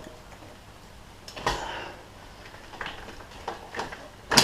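Scattered knocks and clanks from a cheap motorcycle jack being worked under a bike to lift it, ending in one sharp, loud knock.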